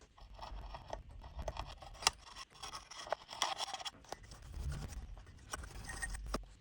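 Scraping and scratching with many sharp clicks, uneven and stop-start: hand work on parts at a bench, the loudest click about two seconds in.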